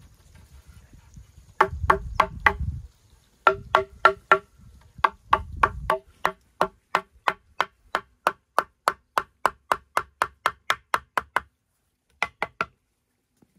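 Repeated strikes of a tool on bamboo, each a hollow, ringing knock. There are three short runs of four, then a steady run of about three strikes a second, and three quick strikes near the end.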